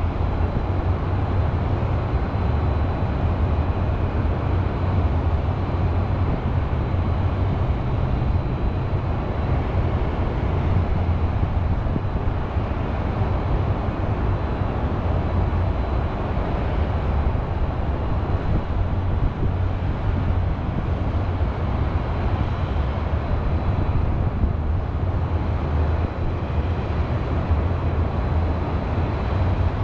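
Steady hum of distant highway traffic: an even wash of noise over a heavy low rumble, with no single vehicle standing out.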